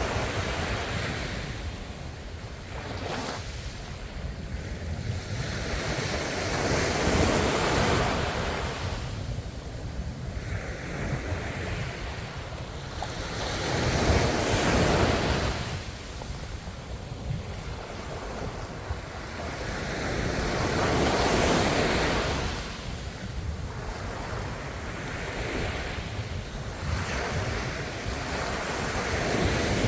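Ocean waves breaking on the shore, each surge rising and falling away about every seven seconds, over a steady low rumble of surf.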